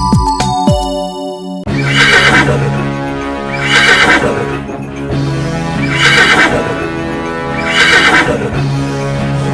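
A horse neigh sound effect repeated four times, about two seconds apart, over a children's-song backing track. It follows a short electronic jingle of falling notes that cuts off suddenly under two seconds in.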